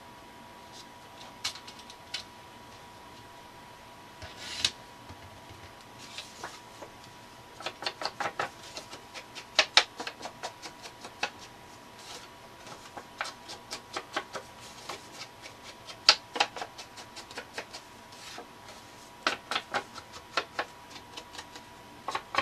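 Paper and cardstock being handled on a craft mat: irregular small clicks and taps, a few single ones at first, then quick clusters of them from about a third of the way in.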